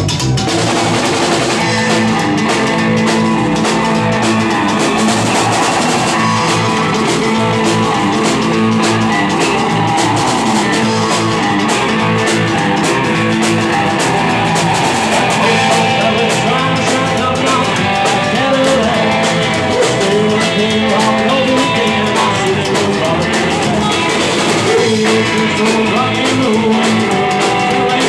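Rockabilly band playing live: electric guitar, upright double bass and drum kit at a steady beat.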